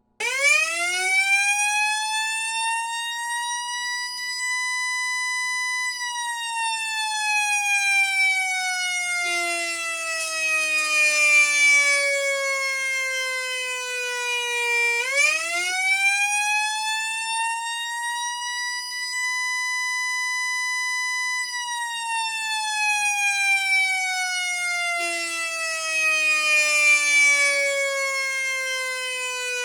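Whelen Alpha electronic siren playing its original "Q" simulated mechanical-siren tone. It starts suddenly, winds up quickly to a high pitch, holds it for about two seconds, then winds slowly down like a coasting mechanical siren, twice over.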